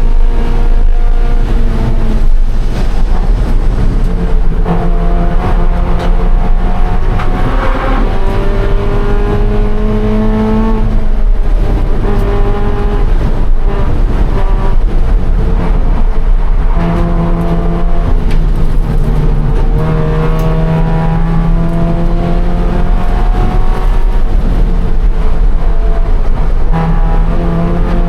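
Scion FR-S's 2.0-litre flat-four engine under race load, heard from inside the car. It revs up through the gears and drops back several times on braking and downshifts, over steady wind and tyre noise.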